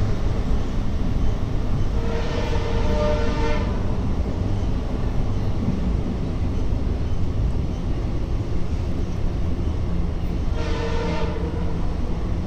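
Horn of a pair of EMD WDP4 diesel locomotives sounding twice, a blast of about a second and a half and then a shorter one near the end, over the steady rumble of the moving train.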